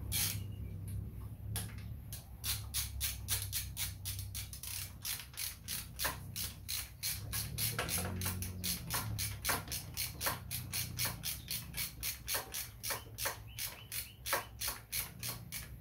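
Hand ratchet clicking steadily as a transmission bolt is run in, about three to four clicks a second, starting about two seconds in.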